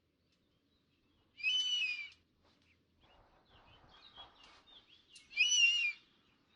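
An eagle calling: two loud, high-pitched cries of under a second each, about four seconds apart, with fainter chirping calls in between.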